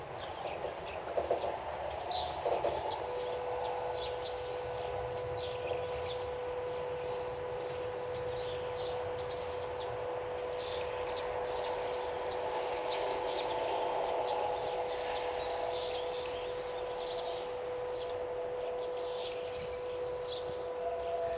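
Birds calling with short chirps, one every second or two, over a steady outdoor hiss. A few clicks come in the first couple of seconds, and a steady humming tone starts about three seconds in and holds on.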